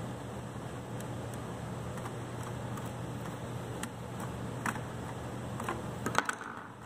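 Faint ticks of a screwdriver backing out the retaining screw of a PLC output card's removable terminal block, over a steady background hum. A few sharper clicks come near the end as the screwdriver is put down.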